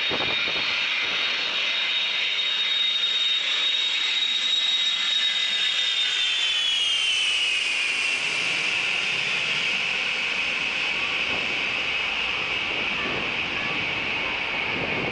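Boeing E-3 Sentry AWACS flying low overhead on landing approach, its four TF33 turbofan engines whining loudly. The whine drops in pitch about seven seconds in as the plane passes overhead, then holds lower as it moves away.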